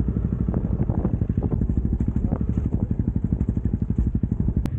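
Single-cylinder trail motorbike engine running with a steady, even beat, with a single sharp click near the end.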